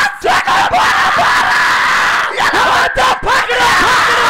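Large crowd of spectators shouting, yelling and screaming together in celebration, with the loud din breaking off for a moment a few times.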